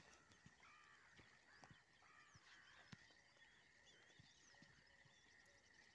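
Near silence: faint outdoor ambience with a few faint bird chirps and a faint steady high tone.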